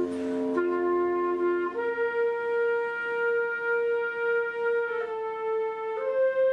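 Military wind band playing a slow passage of long held notes, the top line sustaining one note for about three seconds before stepping down and then up again near the end. A short noisy wash sounds at the very start.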